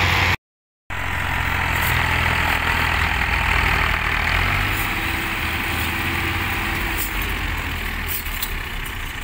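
Several farm tractors' diesel engines running hard together, towing a heavily overloaded trailer through loose sand. The sound drops out completely for about half a second just after the start, then the steady engine hum carries on, easing slightly toward the end.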